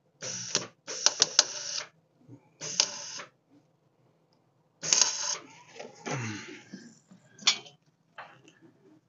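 MIG welder arcing in several short bursts, a crackling buzz with sharp pops, as a nut is welded onto a broken exhaust manifold bolt.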